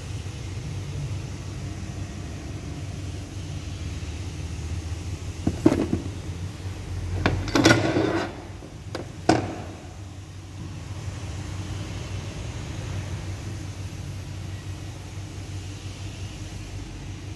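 Steady low machine hum, with a few sharp knocks and a short rustle about halfway through.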